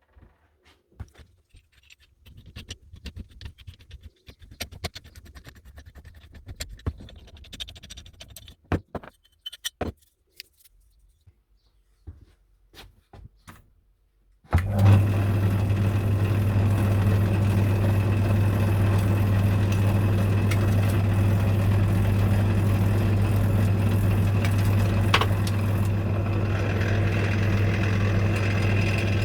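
Scattered clicks and knocks of metal tools being handled, then about halfway a workshop machine starts abruptly and runs steadily with a loud, even, low hum.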